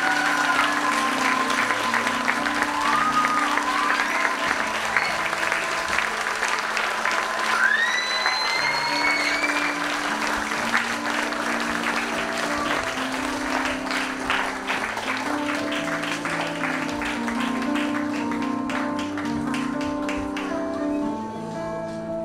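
Audience applauding, with a few rising cheers, the clearest about 8 seconds in, over a keyboard playing a gentle tune. The clapping thins out near the end, leaving the keyboard.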